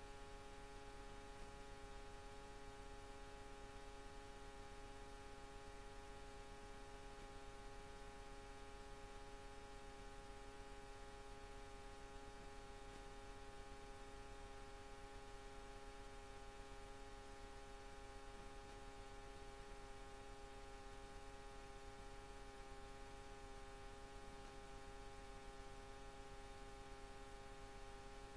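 Near silence: a faint, steady electrical hum with hiss and no other events.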